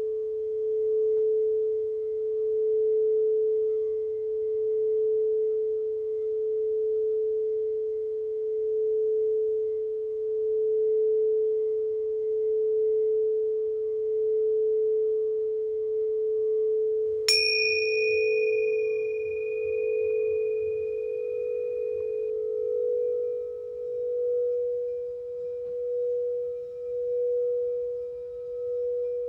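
Singing bowl sounding one sustained low tone with a slow, regular wavering swell. About seventeen seconds in, a sharp strike adds a bright, high ring that fades over several seconds. Later the low tone shifts slightly higher.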